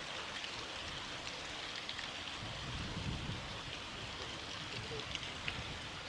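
Steady rushing of a mountain stream, an even hiss of flowing water.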